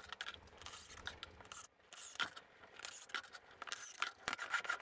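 Quiet, irregular clicks and scrapes of handling: a cordless drill and hands knocking and sliding against the wooden boards inside a planter box, with no drill motor running.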